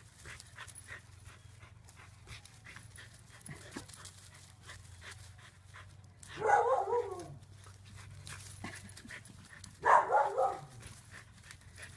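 A dog breathing and making two short, loud, pitched vocal sounds about six and ten seconds in, over a steady low hum that fades near the end.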